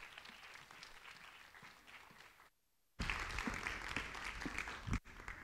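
Audience applauding. The applause cuts out briefly about two and a half seconds in, comes back louder, then falls away near the end.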